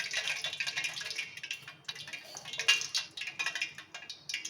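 Irregular crackling with many light clicks and ticks: kitchen utensils being handled, with no steady tone.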